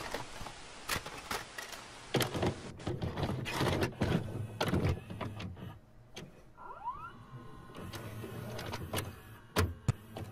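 Video cassette recorder mechanism loading and starting a tape: irregular mechanical clicks and clunks over a motor whirr. A hiss fades over the first two seconds, and a short rising whine comes about seven seconds in.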